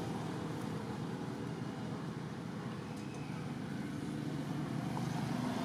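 Steady hum of a motor vehicle engine, with a low drone under an even noise.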